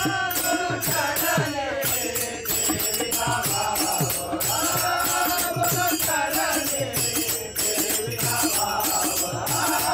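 Group of men singing a Marathi devotional bhajan in chorus, with a steady beat of hand claps and jingling hand percussion.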